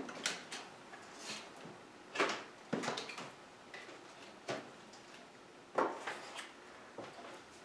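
Irregular light taps, clicks and rustles of small picture cards being handled and put back in place, with a few sharper clicks about two, three and six seconds in.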